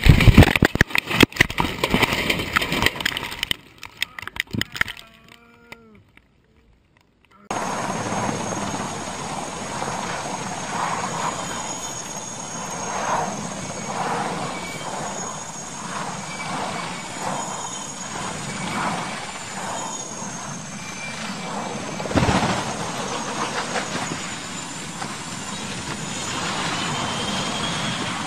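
Violent rattling and repeated impacts inside a small plane's cockpit as it crashes, cutting off after about four seconds. After a short silence, a helicopter's steady engine noise with a high whine, voices over it, and one heavy thump about three-quarters of the way through.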